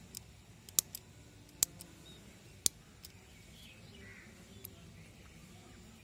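Sharp metallic clicks from the pivot and lock of a stainless-steel Fengli RE102 folding knife being worked by hand. There are about eight clicks, most in the first three seconds and often in pairs, and one faint one near the five-second mark.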